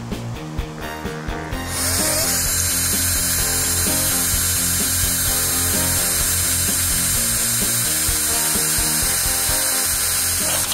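Cordless drill running steadily as it bores a hole through the vehicle's body sheet metal at the door frame, starting about two seconds in.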